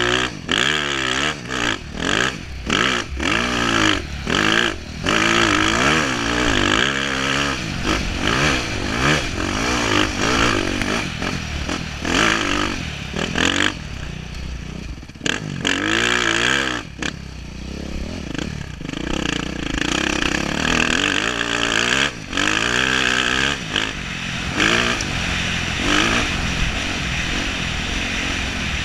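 Dirt bike engine revving hard and falling back over and over, with many brief throttle cuts, as the bike is ridden over rough sandy trail. Heard from a helmet-mounted camera.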